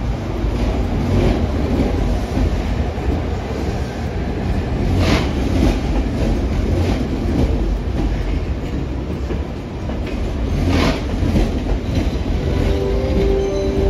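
Train running on the rails with a steady low rumble and two sharp clanks of wheels over rail joints, about five and eleven seconds in. A faint wheel squeal starts near the end.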